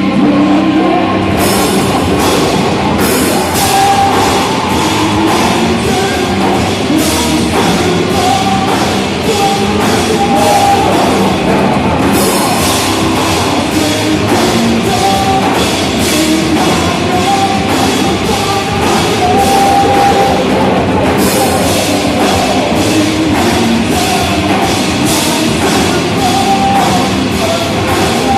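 Live heavy rock band playing loud, with a drum kit keeping a fast, steady beat of cymbal and drum hits under the guitars. The cymbals drop out briefly about a second in and again about 21 seconds in.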